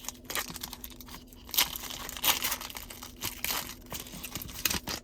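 Foil booster-pack wrapper being torn open and crinkled by hand, an irregular run of crackles with a few louder rips.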